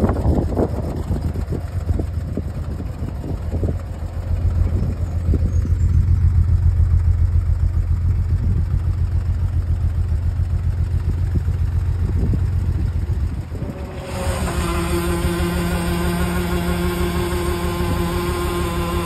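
Old Bedford tip truck's engine running steadily, louder through the middle stretch. About three-quarters of the way through, the sound switches to a steady whine over the engine as the hydraulic hoist starts raising the tipping bin.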